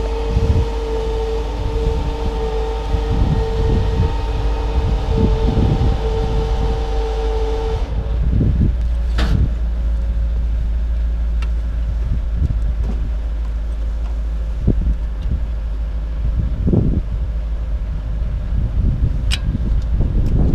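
Blustery wind buffeting the microphone, with scattered knocks and thumps from handling the gyrocopter as a passenger climbs into the front seat. A steady hum stops suddenly about eight seconds in.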